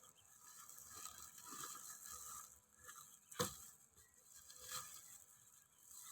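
Faint rustling and scraping of ginger seed pieces being handled and laid out for sowing, with one sharp knock about midway.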